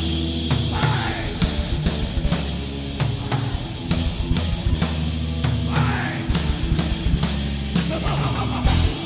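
Heavy metal band playing live at full volume: distorted electric guitars, bass guitar and a drum kit with frequent cymbal crashes.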